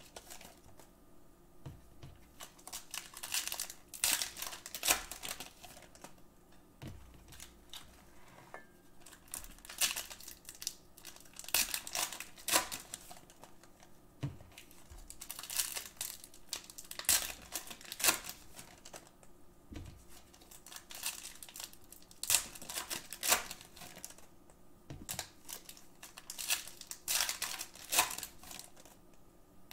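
Plastic trading-card pack wrappers crinkling and tearing as packs are ripped open by hand, in irregular crackly bursts, with cards handled and stacked.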